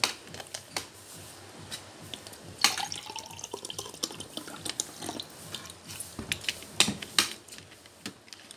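Water poured from a plastic soft-drink bottle into a drinking glass, with a faint rising tone as the glass fills. Sharp clicks and knocks from handling the bottle and glass come before the pour and again a few seconds after it.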